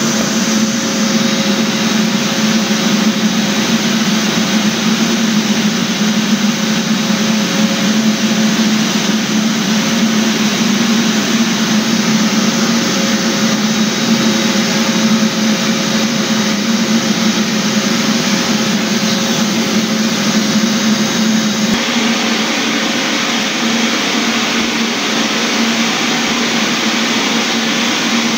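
Electric floor sanding machine running continuously, a steady motor hum under a hiss of air. The sound shifts a little about three quarters of the way through.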